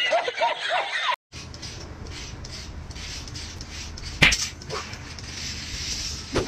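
Comedy sound effects with quick bouncing pitch slides for about a second, cut off abruptly. Then a steady hiss of room noise with one sharp click about four seconds in.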